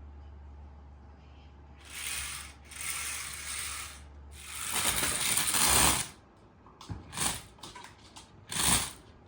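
Small electric motor and plastic gearbox of a remote-control toy robot running in about five short bursts, the longest about five seconds in, as the robot is driven from the remote. A low steady hum sits under the first half.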